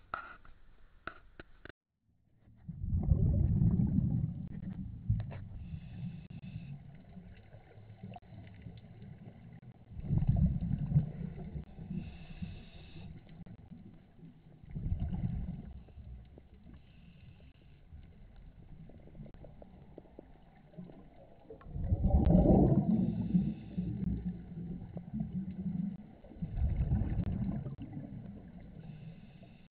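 Scuba diver's regulator exhaust bubbles heard underwater through a camera housing: a low rumbling gurgle every five to seven seconds, once per exhaled breath. A few short clicks come before it, in the first two seconds.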